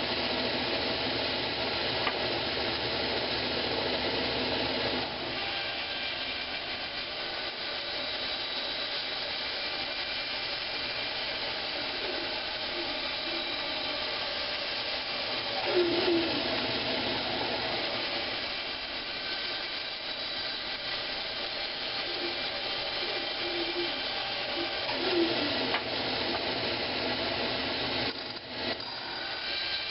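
A power saw running steadily while it cuts a block of old pine into knob blanks. The pitch of the running shifts slightly about five seconds in, and the sound dips briefly near the end.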